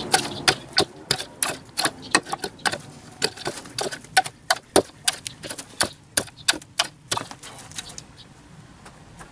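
Shovel digging into stony, gravelly soil: a quick, irregular run of sharp scrapes and stones clinking, about three a second, dying away about seven seconds in.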